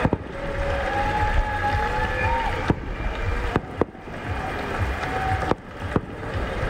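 Distant fireworks going off over a lake: a series of sharp bangs, about ten in all, irregularly spaced and some in quick clusters.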